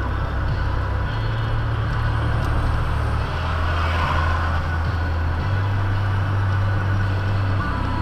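Engine and road noise heard inside a car's cabin as it speeds up from about 15 to 25 mph. A steady low drone runs throughout, and its pitch steps down and back up a few times.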